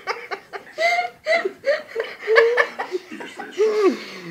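A person laughing in short bursts of chuckles.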